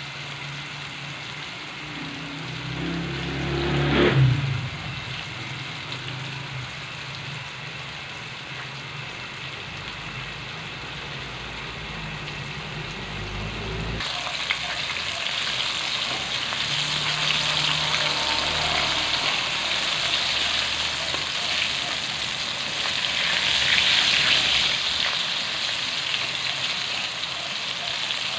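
Breaded chicken pieces deep-frying in hot oil in a wok: a steady sizzle that grows louder and brighter in the second half. About four seconds in there is a brief, louder knock as the pieces are handled with metal tongs.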